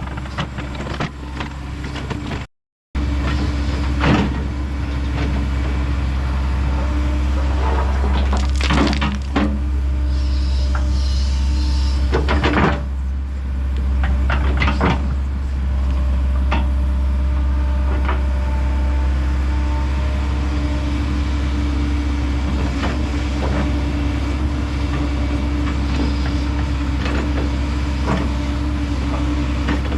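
Kobelco SK210 excavator running steadily with a constant hydraulic whine, with scattered knocks and scrapes of shot rock being moved about.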